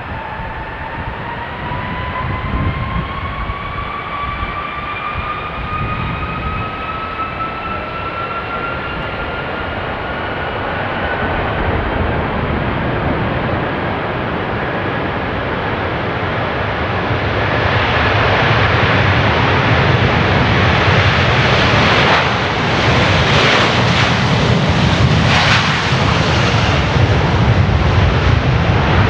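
Airbus A330-300 jet airliner taking off under full thrust: a whine that rises steadily in pitch over the first ten seconds or so, then a louder engine roar that builds from a little past halfway and stays loud.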